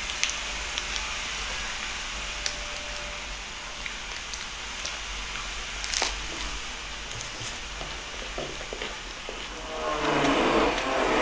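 Lettuce leaves crinkling in the hands and close-up chewing, with a sharp crunch about six seconds in as a lettuce wrap of fried food is bitten. A louder humming tone comes in near the end.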